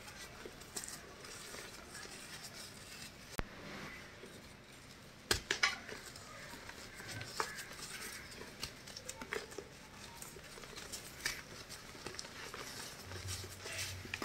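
Hands squeezing, crumbling and sifting fine white powder with crumbly chunks: soft continuous crunching and pattering of falling powder, with a few sharper crunches, the loudest about five seconds in.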